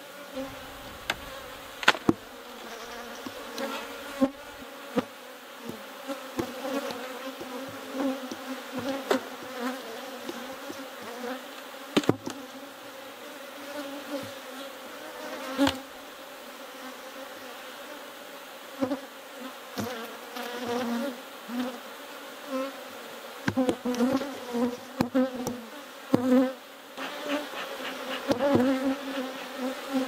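Many honey bees buzzing around an opened hive in a steady, wavering hum, broken by occasional sharp knocks and clicks as the hive is worked.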